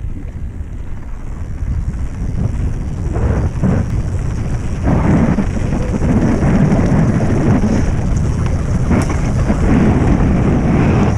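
Wind rushing over an action camera's microphone with the rumble and rattle of a mountain bike riding fast down a stony dirt trail, getting louder about five seconds in.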